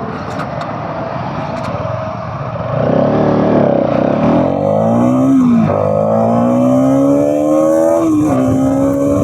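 Bajaj Pulsar NS200's single-cylinder engine on its stock exhaust accelerating, its pitch rising steadily and dropping at two gear shifts, about halfway through and near the end.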